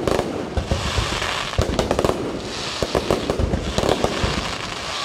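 Aerial fireworks going off in a continuous barrage: many sharp bangs and cracks in quick clusters over a steady crackle.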